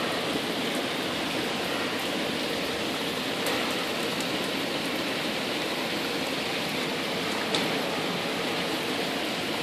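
Steady rain falling in a thunderstorm: an even hiss with a few sharper drop ticks here and there.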